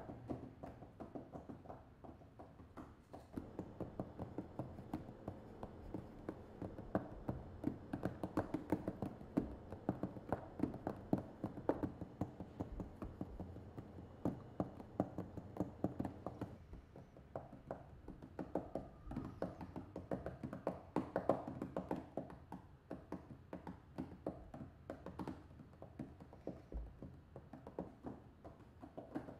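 Fingertips tapping rapidly and unevenly on a closed laptop lid, fingering a piano piece without a keyboard.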